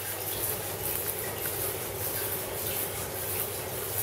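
Shower with an electric instant water heater running: a steady hiss of flowing water with a low, constant hum underneath.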